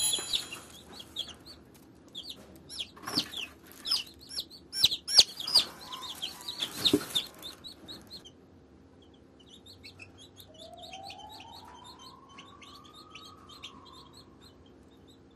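Young chicks peeping in quick, short, high chirps. In the first eight seconds the peeps are louder and mixed with several sharp knocks and rattles. After that they are fainter, with a faint whine that slowly rises in pitch.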